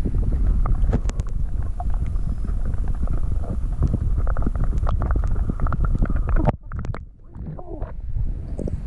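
Muffled underwater rumble and sloshing against a submerged GoPro housing, with many small knocks and ticks as water and a hand move around the case during a bass release. About six and a half seconds in, the higher sound cuts out sharply and the rumble dips for a moment before building again.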